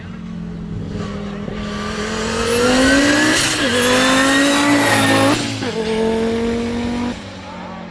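Audi S2 R hillclimb car's turbocharged five-cylinder engine at full throttle, climbing in pitch through a quick upshift midway. About five and a half seconds in the revs drop suddenly as the driver lifts, then it holds a lower, steadier note and fades.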